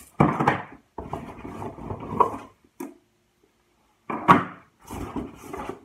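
Hands rummaging in a jute shopping bag: rustling and knocking as items inside are moved, in two spells with a short pause between them.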